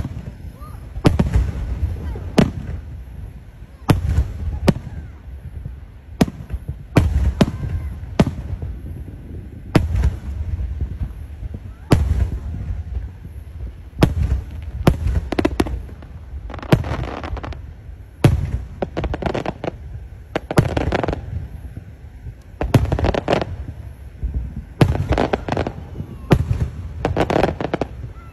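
Aerial firework shells bursting overhead in a series of booms, about one every second or two at first, then coming faster and in clusters through the second half.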